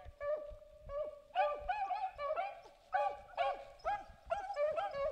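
A pack of beagles baying together, several voices overlapping in repeated calls that bend in pitch, several a second without a break: hounds giving tongue as they run a rabbit.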